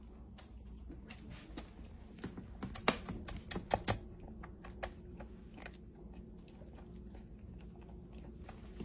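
Faint, irregular small clicks and taps, a few of them a little louder about three to four seconds in, over a low background hum.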